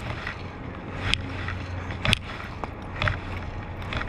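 Water and wind noise close to the water's surface with a steady low hum, broken by three sharp clicks about a second apart, while a fly angler plays a hooked fallfish.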